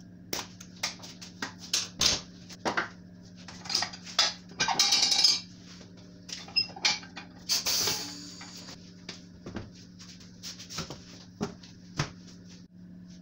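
Metal clattering and knocking as tools and a tire bead spreader are handled, with two short hissing bursts, about five and eight seconds in, over a steady low hum.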